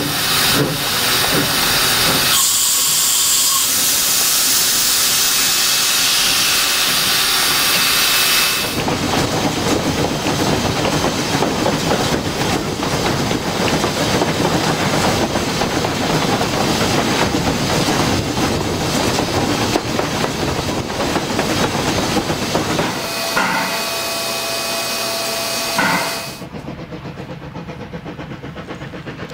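Steam locomotive heard from on board while working a train. Its exhaust beats at first, then a loud steam hiss lasts about six seconds, then the engine and the train's running noise go on for a long stretch. A steam whistle sounds for a few seconds near the end, then the sound drops to a quieter, more distant train.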